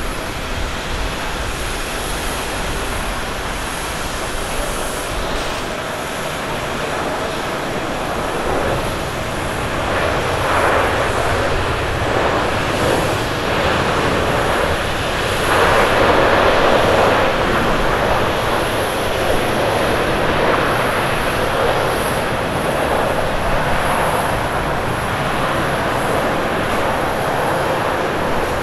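Twin-engine Airbus A330 airliner landing: a steady jet engine noise that swells from about nine seconds in, is loudest around the middle and stays strong, as on the landing roll with reverse thrust, then eases slightly near the end.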